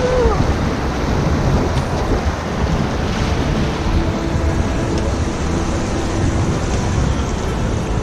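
River rapids rushing around an inflatable raft: a steady, loud rush of water with a heavy low rumble.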